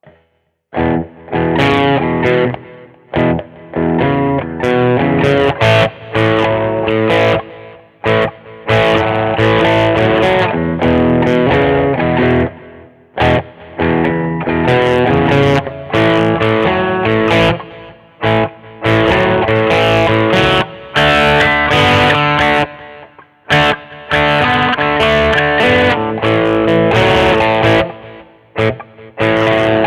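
Schecter Omen 6 electric guitar played through a distorted tone, in riffs broken by short stops. It starts about a second in.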